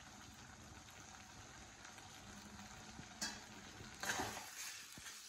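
Perforated steel ladle stirring thick chicken gravy in a stainless steel kadai, over a faint sizzle of the gravy cooking. A light tap about three seconds in, then a louder scrape of the ladle against the pan about a second later.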